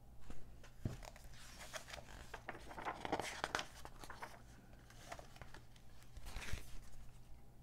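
Glossy magazine pages being turned by hand: the paper rustles and slides in bursts, loudest about three seconds in and again briefly near six and a half seconds. A faint steady low hum sits underneath.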